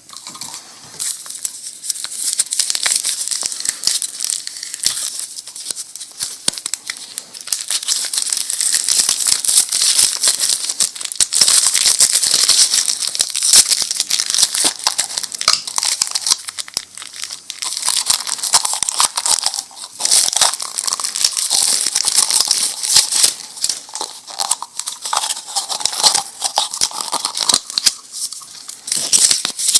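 Crinkling and tearing of Pez candy packaging being opened by hand, close to the microphone: dense, continuous crackle.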